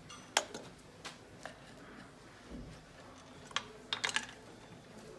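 Scattered light clicks and clinks of a compression gauge's hose and screw-in fitting being handled on the engine between cylinder readings, with a small cluster of taps around four seconds in.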